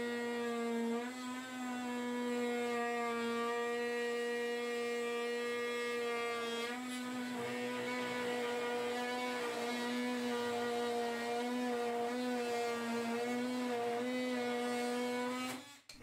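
DeWalt oscillating multi-tool cutting into plywood: a steady, high, buzzing whine with small shifts in pitch, about 102 to 104 dBA at the tool. It stops abruptly near the end.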